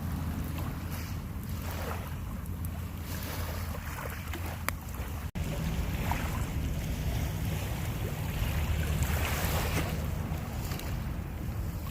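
Wind buffeting the microphone, a steady low rumble with a rushing hiss that swells and eases; the sound drops out for an instant about five seconds in.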